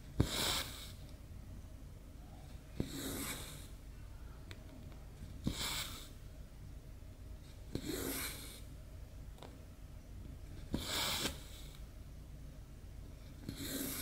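Cross-stitch floss pulled through 14-count Aida fabric, six times, about every two and a half seconds: each pull starts with a light click as the needle passes through, then a short hiss of thread drawn through the weave.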